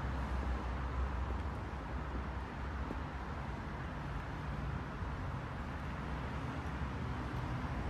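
Car engine idling steadily, a low even rumble.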